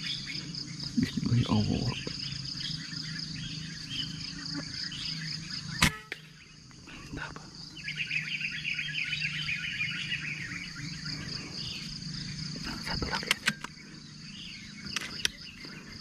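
Air rifle firing a single sharp shot about six seconds in, over a steady drone of crickets and other insects. A run of chirping starts a couple of seconds after the shot.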